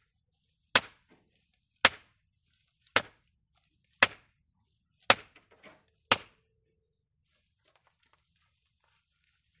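Hammer blows on a wooden board held across the top of a wooden post, driving the post into the ground: six sharp strikes about a second apart, then they stop.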